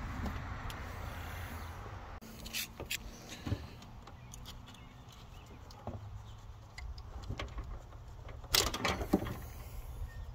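Hands and tools working on car engine-bay parts: scattered clicks and knocks of metal being handled, with a louder cluster of knocks about eight and a half seconds in.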